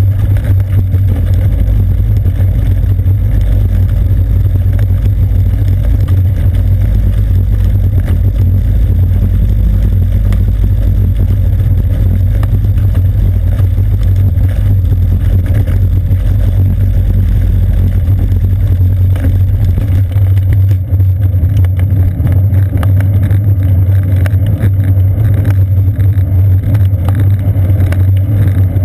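Steady loud low rumble of a bicycle rolling along a street, taken up as road vibration and wind through a seat-post-mounted GoPro Hero 2.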